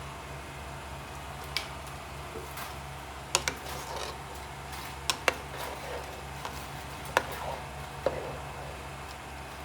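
Utensil knocking against a cooking pot during stirring: about seven sharp clinks at irregular intervals, over a steady low hum.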